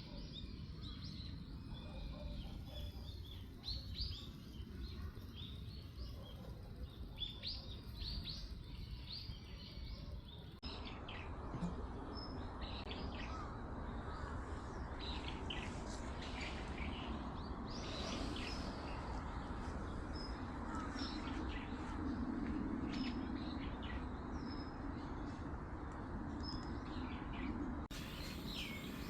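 Small birds chirping: many short calls, one after another, over a steady background hush. The background changes abruptly about a third of the way in and again near the end.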